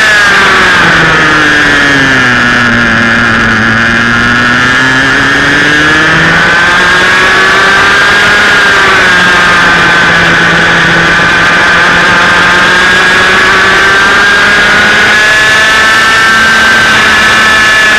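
Loud onboard sound of a 125cc two-stroke TaG kart engine under racing load. Its pitch falls over the first few seconds as the throttle is lifted, climbs again from about five seconds, dips briefly around nine seconds and rises once more near the end.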